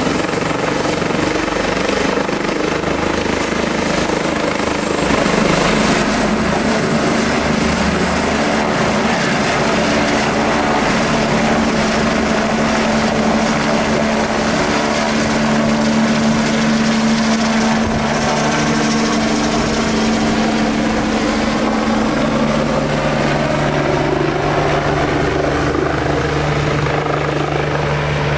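Eurocopter EC145 running loud on the ground: its twin Turbomeca Arriel turboshafts give a steady high whine over the rotor noise. Near the end the rotor sound deepens as the helicopter takes load and lifts off.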